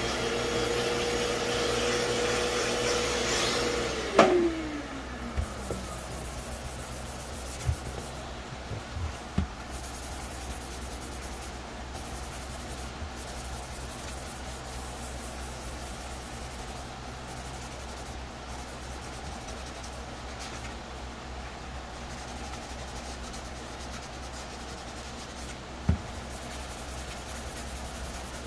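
Fine sanding sponge rubbed by hand over a plastic helmet shell in steady scuffing strokes. At the start a small electric motor hums steadily, then with a loud click about four seconds in its pitch falls as it winds down.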